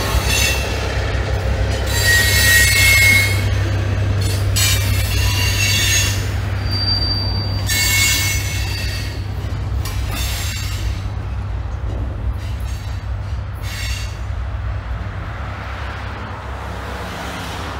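Loaded freight cars rolling over a steel girder railroad bridge, their wheels squealing in repeated high bursts, over the steady low drone of an EMD MP15DC switcher's diesel pulling the train up a steep grade. The sound fades as the cars move off.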